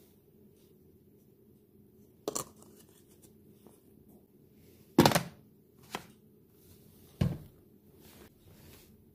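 Plastic parts of an automatic foaming soap dispenser knocking and clicking as the soap reservoir is fitted into the body: four sharp knocks, the loudest about five seconds in. The last, duller knock fits the assembled dispenser being set down on a stone countertop.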